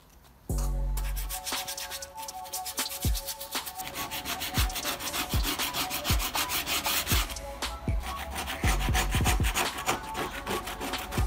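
Rapid wet scrubbing and scraping on a Honda VTEC valve cover softened with paint stripper, lifting the blistered paint. Background music with a steady beat runs under it.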